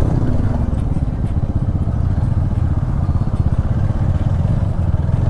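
Motorcycle engine running steadily, with a fast, even low pulsing and no change in revs.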